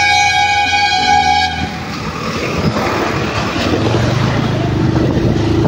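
A vehicle horn blares one steady note for about a second and a half, then a motorcycle engine runs as the bike rides off.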